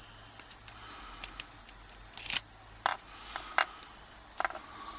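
Small metallic clicks and taps from handling a padlock and its parts, about eight at irregular intervals, the loudest a little over two seconds in.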